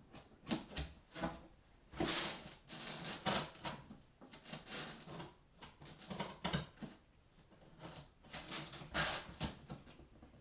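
Hands handling computer parts and their packaging: irregular rustling, clicks and light knocks.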